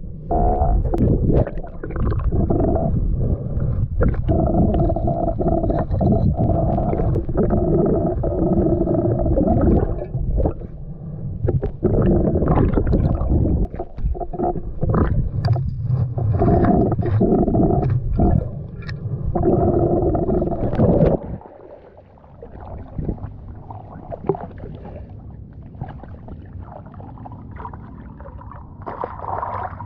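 Muffled underwater rumbling and gurgling picked up by a camera held underwater while snorkelling, with scattered clicks and knocks. It drops much quieter about two-thirds of the way through.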